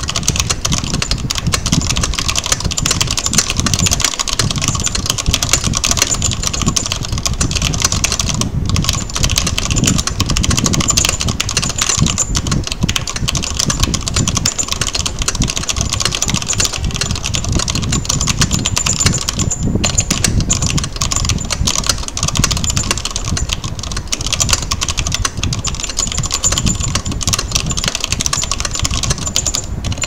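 Rapid, continuous key clatter from a backlit mechanical keyboard typed at speed-test pace, about 133 words a minute, with a few brief pauses.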